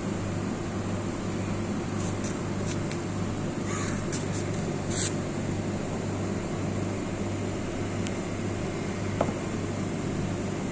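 Steady low machine hum, with a few short, sharp, higher sounds between about two and five seconds in.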